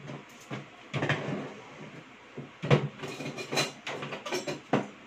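Kitchen handling noises: irregular knocks and clicks of utensils and containers being moved about on a counter, with rustling, the sharpest knocks about three seconds in and again near the end.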